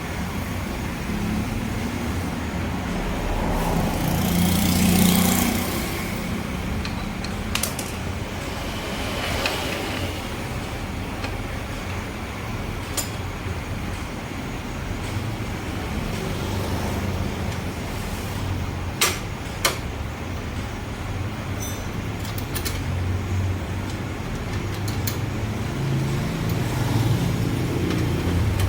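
Steady rumble of road traffic going by, swelling about four to five seconds in, with a few short sharp clicks and taps from tools as the motorcycle's rear brake drum and wheel are refitted.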